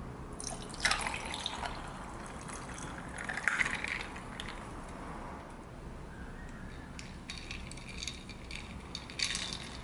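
Tea poured from a teapot into a tall glass full of ice: a splashing pour lasting about four seconds, with the ice clinking and cracking sharply twice. After it, faint scattered ice ticks, and a short splash near the end as a lemon slice goes in.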